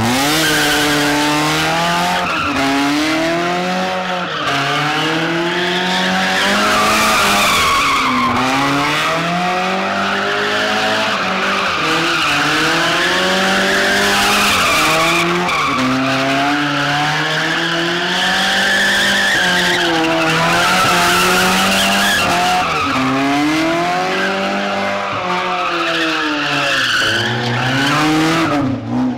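Mazda Miata doing donuts: the engine revs rise and fall over and over while the tyres squeal and skid on the asphalt. The engine is running with maple syrup in its crankcase in place of engine oil.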